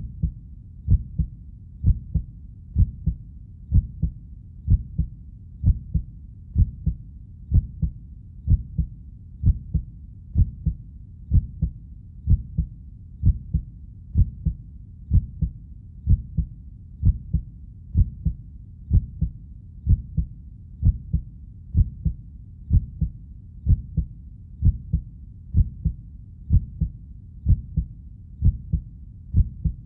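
Heartbeat sound effect: a steady lub-dub of paired low thumps, about one heartbeat a second, with a faint low rumble between beats.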